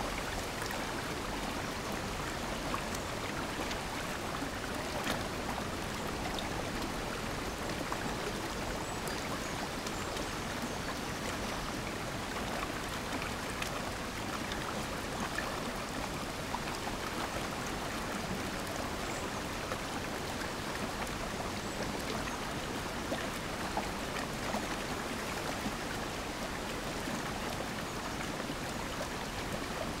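Shallow stream running fast over a stony bed between stone banks: a steady rush of flowing water.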